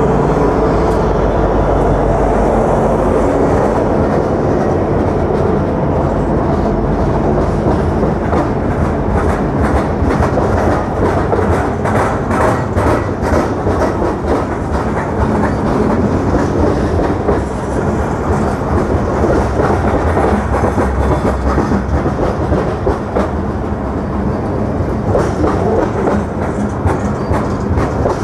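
Freight train passing close by. At first the diesel locomotives' engines are heard as a steady hum, then the freight cars' wheels clatter over the rail joints in a quick, regular clickety-clack.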